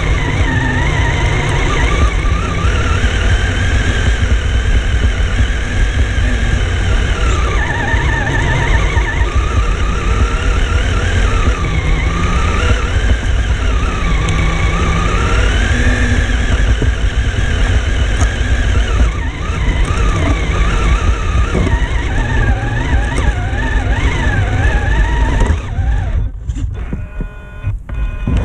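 RC crawler's motor and drivetrain whining from on board, the pitch gliding up and down with the throttle over a heavy rumble from the chassis rolling over rough ground. About 25 seconds in the whine stops, leaving a few clicks.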